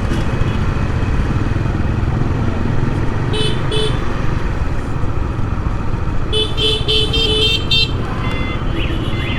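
Steady rumble of wind and road noise from a motorbike riding through traffic. Vehicle horns beep twice about three and a half seconds in, then in a quick run of several beeps from about six to eight seconds.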